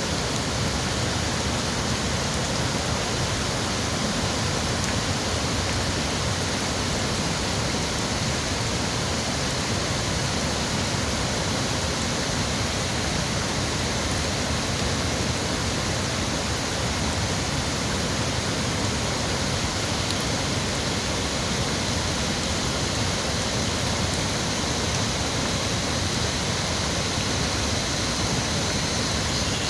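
Steady rush of water from Mo Paeng waterfall, running after a night of heavy rain.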